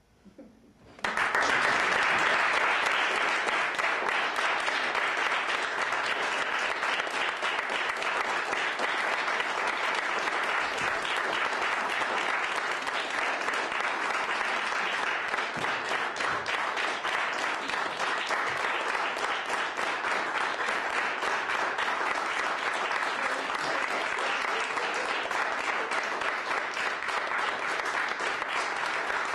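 Audience applauding, breaking out suddenly about a second in after a brief hush and then going on as steady, dense clapping.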